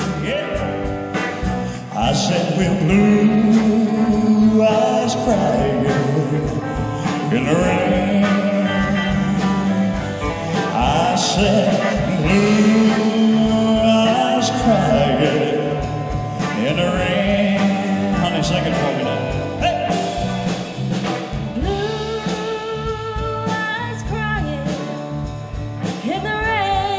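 Live band playing a country ballad: a male lead singer sings over electric guitar, bass, drums and keyboards, with steady drum beats.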